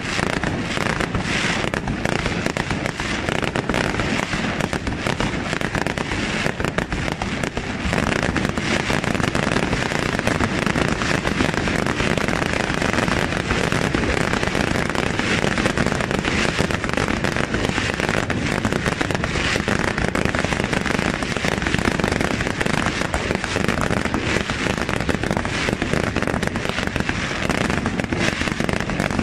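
Aerial fireworks shells in a dense barrage, bursting and crackling almost without a break.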